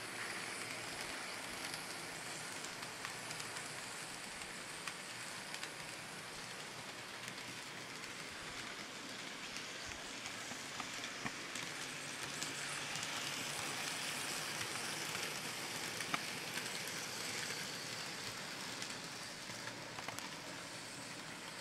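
N scale model coal train, a Kato GE ES44AC locomotive pulling hopper cars, rolling along the track: a steady hiss of small wheels running on rail, with scattered faint clicks.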